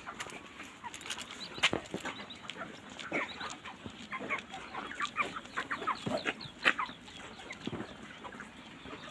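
A flock of broiler chickens clucking and calling in many short, overlapping calls, with a couple of sharp clicks.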